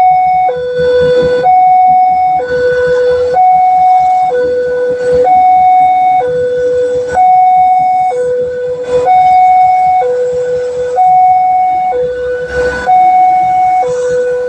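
Railway level-crossing warning siren sounding a loud two-tone hi-lo wail, a higher and a lower tone each held about a second and alternating steadily, the signal that a train is approaching and the crossing barrier is down.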